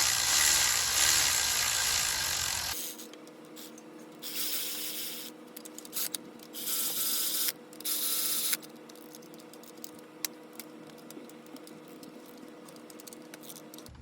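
Motorised power tool running the 13 mm water pump bolts down: one long run of a couple of seconds, then three shorter runs of a second or so.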